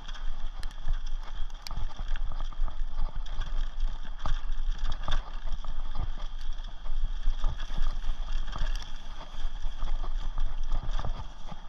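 Rocky Mountain Thunderbolt mountain bike rolling fast over a dirt trail: a steady rush of tyres on dirt, broken by frequent knocks and rattles from the bike over bumps.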